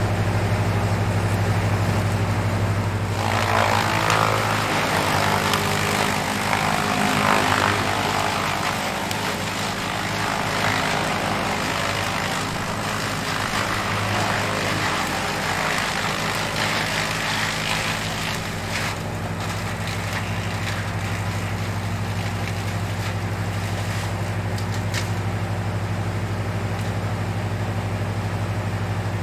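Wood chipper's engine running steadily, with a louder rough chipping noise from about three seconds in until about eighteen seconds, then running on without it.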